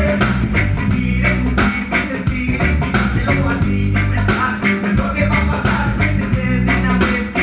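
Live band playing music with a steady drum beat and heavy bass.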